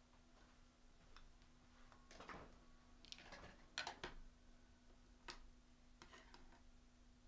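Faint clicks and rustles of trading cards and plastic card holders being handled, the loudest a little under four seconds in, over a steady low hum.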